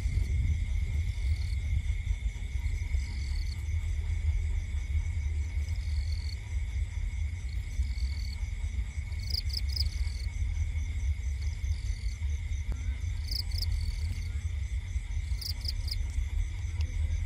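Crickets and other insects calling: steady high trills with short chirp bursts, a few louder ones in the second half, over a low steady rumble.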